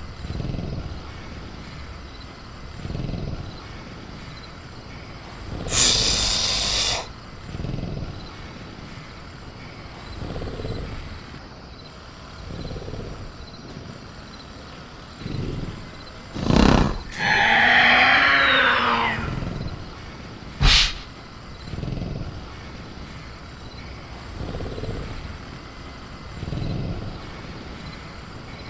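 Velociraptor creature sound effect: low growling breaths every two to three seconds, and a hissing burst about six seconds in. Past the middle comes a sharp bang, then a screech lasting about two seconds whose pitch rises and falls, then another sharp crack.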